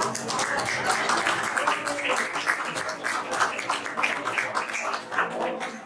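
Audience applauding, a dense patter of many hands clapping, with faint voices and music underneath.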